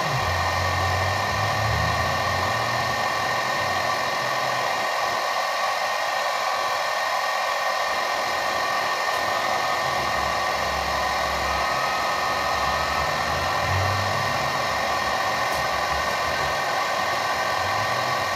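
Portable laser engraver running while it engraves: a steady whir with several fixed whining tones from its fan and motors. A low hum underneath swells and fades every few seconds as the laser head works across the drawing.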